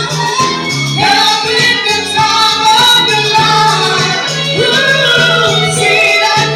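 A woman singing into a handheld microphone over loud backing music with a steady, pulsing bass line.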